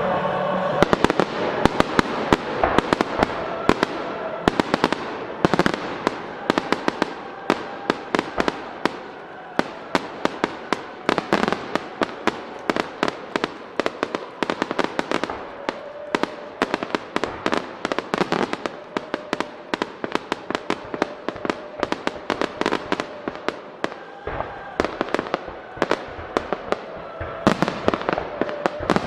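A starmine fireworks barrage: aerial shells and rising comets fired in rapid succession, giving a dense stream of sharp bangs and crackling bursts. The bangs are thickest and loudest in the first few seconds and again near the end.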